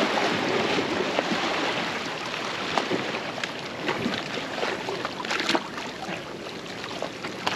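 Steady rush of water from waves and current washing over the rocks of an inlet, with a few light knocks scattered through it.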